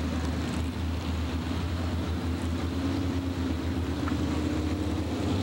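A steady low rumble under an even background hiss, with no distinct events.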